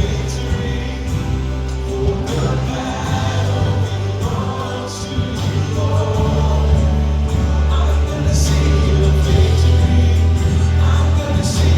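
Live worship music: a band with a heavy, steady bass and occasional cymbal crashes, under a group of voices singing.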